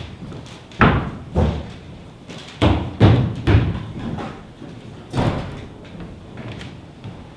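A series of about six irregular heavy thumps and knocks, bunched most closely around three seconds in, each dying away quickly.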